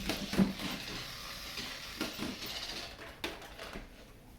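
Remote-control BB-8 toy driving: a hissing whir with a few light knocks, dying away about three seconds in.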